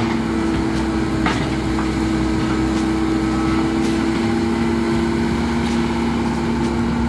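Diesel construction machinery engine running steadily, a constant droning hum with no change in speed.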